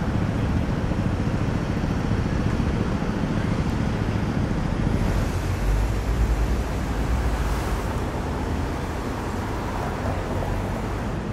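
Busy city street ambience: steady traffic noise, with a low rumble that swells for a few seconds in the middle.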